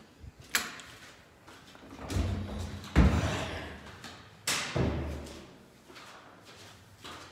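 A door being opened and shut, with rustling and knocks: a heavy thud about three seconds in and another sharp knock about a second and a half later.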